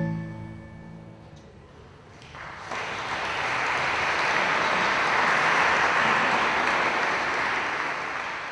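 The organ's final chord dies away in the church's reverberation, then about two seconds in the audience breaks into applause, which fades out near the end.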